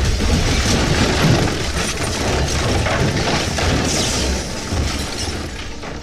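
Explosion aftermath in a dramatized film scene: a dense rush of noise over a heavy rumble, full of small clattering and shattering hits like falling debris and breaking glass. It starts abruptly and eases off slowly over the last couple of seconds.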